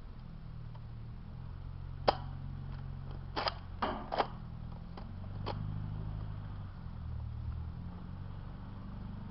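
Sharp clicks and snaps from Nerf foam-dart blasters being primed and fired, about seven in all, the loudest about two seconds in and a quick cluster near four seconds, over a steady low rumble.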